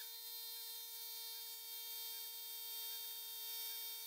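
Spindle of a Grizzly G0704 mill converted to CNC, running with a steady whine of several stacked tones while a spot drill cuts into an aluminium block. A faint wavering pulse repeats about four times a second under the whine.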